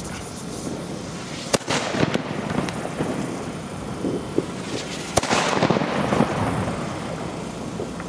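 Nico beehive (Bienenkorb) fireworks going off: a sharp crack about a second and a half in and another about five seconds in, each followed by hissing and crackling.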